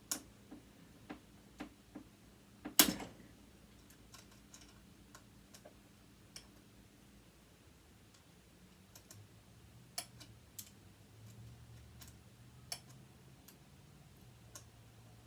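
Scattered clicks and taps of tools and small metal parts being handled while a sewing machine motor is dismantled, with one louder knock about three seconds in and a few sharper clicks later.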